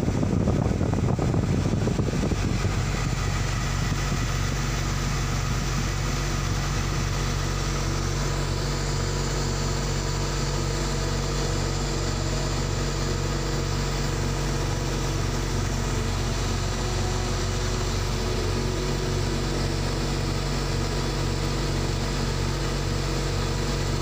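Wheel loader's diesel engine idling steadily, heard from inside the cab, with a louder rush of noise in the first two seconds.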